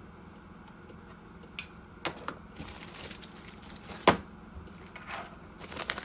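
Parts of a mini bench drill press and its packaging being handled: a few scattered clicks and knocks, the sharpest about four seconds in.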